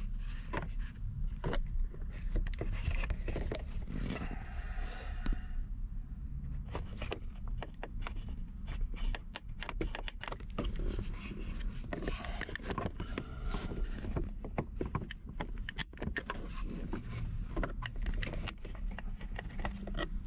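Flat-blade screwdriver scraping and clicking against the plastic of the center console's USB and audio-input hub as it is pried out. There are many small irregular clicks and scrapes over a steady low rumble.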